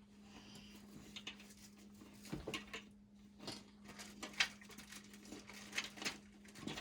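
Scattered light clicks and taps of toy roller coaster track pieces being handled and fitted together, over a faint steady hum.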